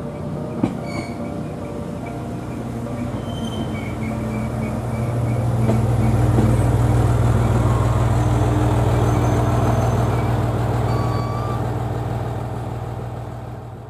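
ET122 diesel railcar running past, its diesel engine's low hum growing loudest as the car goes by and fading near the end. There is a single sharp click just under a second in.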